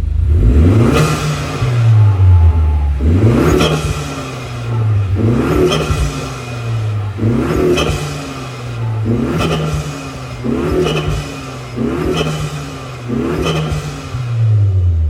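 2022 Acura TLX A-Spec's turbocharged 2.0-litre K20 four-cylinder revved repeatedly, about every two seconds, pitch climbing then dropping back each time. A rush of air at each throttle lift comes through the K&N cold air intake and the upgraded recirculation valve.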